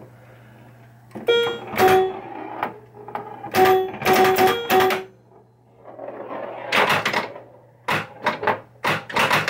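Bally Fireball Home Edition pinball machine in play: sharp clacks from the flippers, coils and ball striking targets, with short electronic tones and a steady electrical hum underneath.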